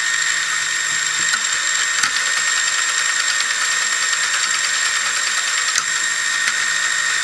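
Armatron toy robot arm's small electric motor and plastic gear train running steadily, a constant whir with a few faint clicks. The drive is turning again with a freshly cast replacement gear fitted.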